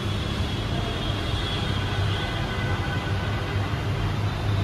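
Steady low mechanical drone with a hiss over it, unchanging throughout.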